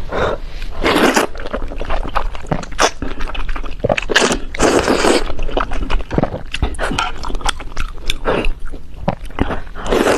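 Close-miked eating of spicy food: chewing and crunching with many small clicks, broken by several longer noisy bursts, the loudest about a second in and around five seconds in.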